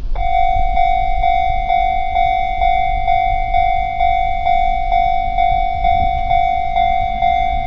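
Japanese railway level-crossing warning bell starting up and ringing its repeated 'kan-kan' strikes, about two a second, each a ringing tone with higher overtones. A low rumble runs underneath.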